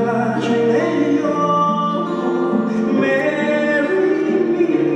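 A man singing a wedding ballad live into a handheld microphone over a steady musical accompaniment of held chords.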